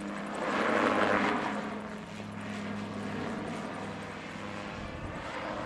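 Display autogyro flying past, its engine and pusher propeller giving a steady note. A louder rush of noise swells about half a second in and eases off by about two seconds.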